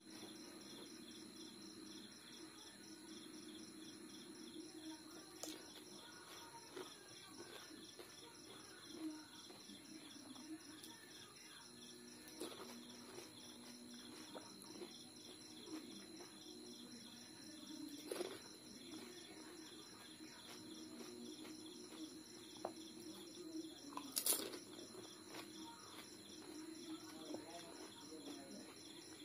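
Crisp hollow pani puri shells being cracked open with a fingertip: a few sharp crackles several seconds apart, the loudest about three-quarters of the way through. Under them runs a faint steady hum and a high-pitched pulsing chirr.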